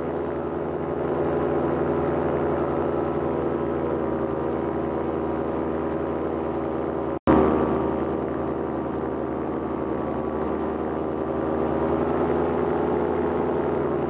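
Paramotor engine and propeller running with a steady drone as the powered paraglider flies. About seven seconds in the sound cuts out for an instant and comes back slightly louder.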